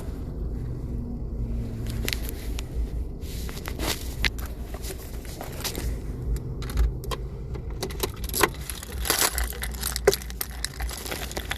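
Keys jangling and clinking again and again, busiest near the end, over a steady low rumble.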